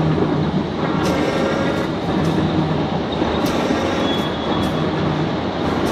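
Heavy horizontal lathe running, turning a large crankshaft: a loud, steady mechanical rumble and grind, with a few sharp clicks at irregular intervals.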